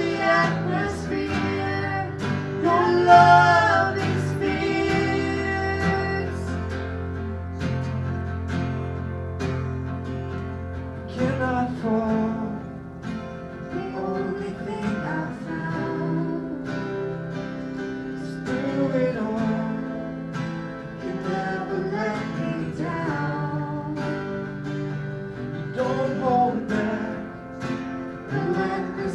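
Live worship band playing a song: strummed acoustic guitar and band accompaniment under sung vocals.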